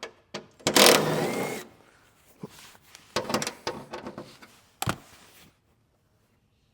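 Tool and metal handling noise while the underbody shield of a Mitsubishi Lancer Evolution X is being removed. A loud scraping burst comes about a second in, then scattered clicks and knocks with one sharp knock near five seconds, and it goes quiet near the end.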